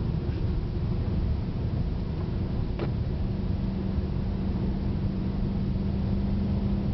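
Cabin noise of a Subaru WRX with a turbocharged flat-four, driven at about 60–70 mph: a steady low rumble of engine and tyres. A brief tick comes a little before three seconds in, and a steady hum joins it just after.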